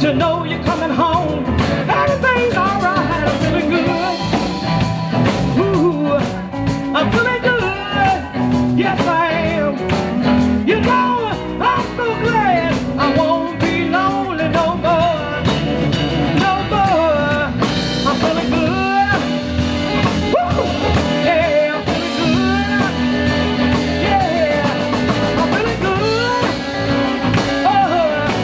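Live blues band playing: electric guitar, Roland VK-8 organ, bass and drum kit, with a woman singing into a microphone, her voice sliding and bending over the band.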